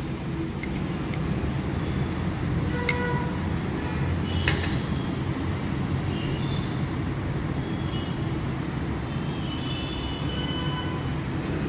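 Steady low background rumble with a few faint clicks and a few faint, short high tones scattered through it.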